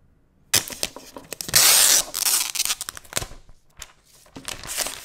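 Packaging being torn and crinkled by hand, in several rasping bursts with handling clicks, the loudest a long tearing rasp about a second and a half in.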